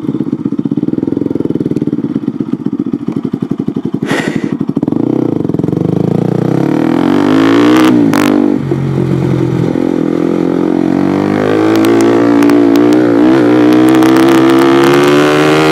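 Bajaj Pulsar NS200's single-cylinder engine running through a replica Akrapovic silencer, with the stock underbelly muffler removed. It runs at low revs at first. Then it pulls away: the revs rise, drop sharply about eight seconds in, and climb again toward the end.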